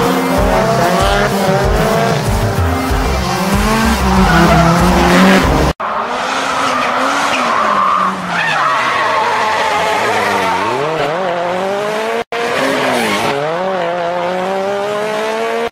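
Drift cars' engines revving hard through a slide, pitch rising and falling with throttle blips, with tyres squealing. The sound breaks off abruptly twice as one clip cuts to the next.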